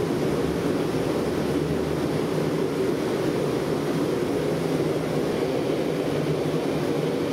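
Forced-air gas forge running: a steady rushing noise from the burner and its high-pressure blower, even in level throughout, with a faint low hum underneath.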